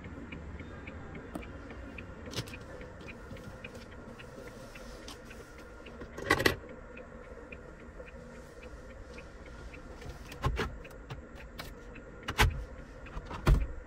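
Sharp knocks and clicks of a hand handling the plastic interior trim and glove box of an Isuzu D-Max pickup's cabin. There is a cluster about six seconds in, then several more single knocks in the last few seconds, over a faint steady background.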